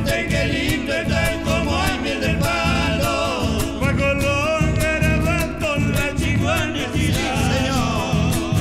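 Live Argentine chacarera: a man singing over strummed acoustic guitars and a violin, with a bombo legüero drum beating out the rhythm.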